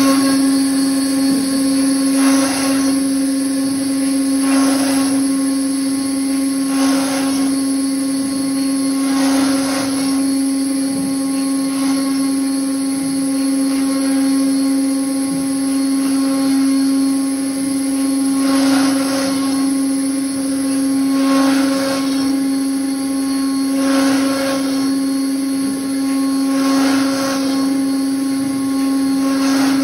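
CNC router spindle running with a steady high hum while cutting holes in a plastic sheet. Short bursts of cutting noise come about every two and a half seconds, pausing for several seconds midway before resuming.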